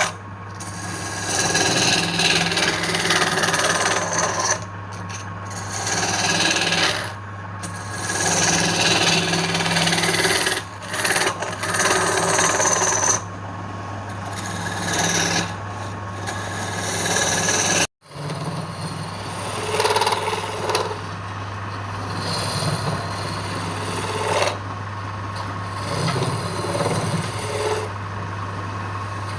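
Wood lathe running with a steady motor hum while a tool scrapes against the spinning wood in repeated passes of a few seconds each. The sound cuts out for an instant about eighteen seconds in.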